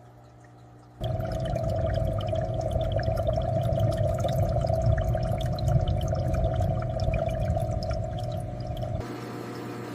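Running water splashing and dripping, with many small droplet ticks. It cuts in suddenly about a second in and drops back to a softer, steady water sound near the end.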